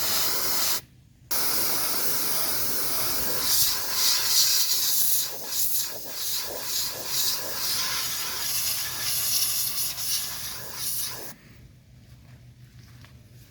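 HomeBrite electronics duster can spraying compressed gas: a short blast that cuts off about a second in, then one long continuous hissing blast that stops near the end.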